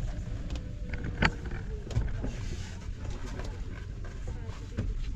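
Steady low rumble of a vehicle, with scattered knocks and clicks and one sharp knock about a second in.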